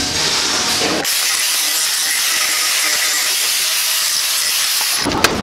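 A steady, loud hiss starting about a second in and cutting off suddenly near the end.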